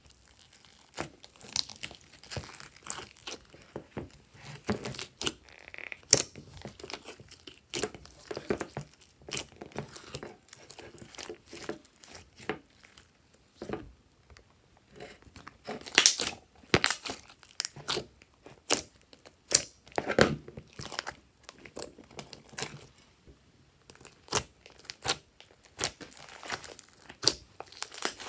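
Hands squeezing, stretching and mixing glossy slime, making irregular wet clicks, pops and crackles, with a few louder pops near the middle.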